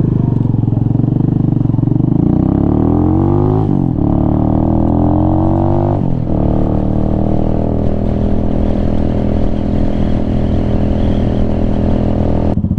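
Venom Ghost Chopper 250 engine pulling away under acceleration. The revs climb, drop at an upshift just under four seconds in, climb again, drop at a second shift about six seconds in, then hold steady as the bike cruises.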